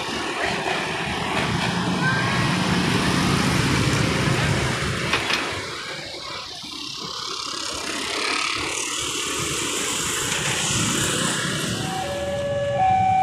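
Motor scooters and light traffic running across a railway level crossing, a steady wash of small engines and tyres. Near the end the crossing's electronic warning alarm starts, two tones alternating high and low, signalling an approaching train.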